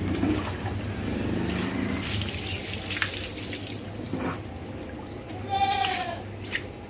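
Water running from a hose into a plastic bucket, with mugfuls scooped out and splashed while a bull is washed. About five and a half seconds in, a goat bleats once.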